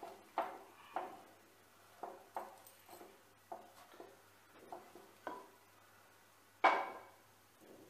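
Metal tongs tapping and clicking against the gas burner's grate as a roti is turned over the open flame: a string of light, irregular clicks. Near the end, a louder metallic clatter as a frying pan is set down on the burner grate.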